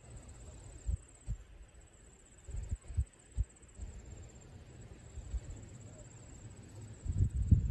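Wind buffeting the microphone in irregular low thumps and rumbles, with a stronger gust about seven seconds in.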